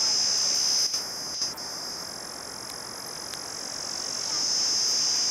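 A steady, high-pitched chorus of insects. It thins out about a second in and swells back near the end, with a couple of faint clicks.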